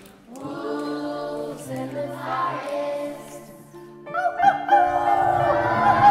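Women's voices singing long held notes together in harmony. About four seconds in, the music gets louder and fuller.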